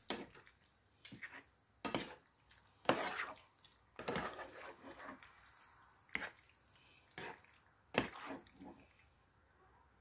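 Creamy pasta being worked with a utensil: a series of about eight wet, squelching sounds at irregular intervals.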